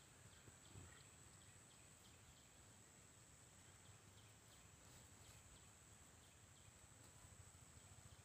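Near silence: faint outdoor ambience with a thin steady high tone and a few faint ticks.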